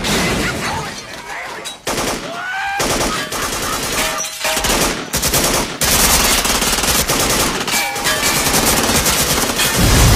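Film soundtrack gunfire: repeated bursts of automatic weapon fire, turning into dense, rapid sustained shooting from about six seconds in.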